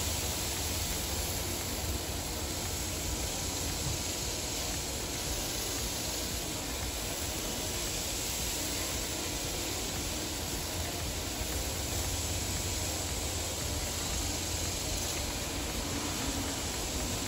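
Chicken pieces sizzling on a grill grate: a steady hiss with a low rumble underneath.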